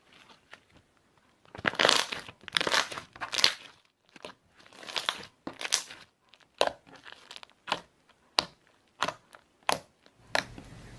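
Slime being squeezed and worked by hand: a few loud, noisy squishes in the first half, then a string of short sharp pops about every half second.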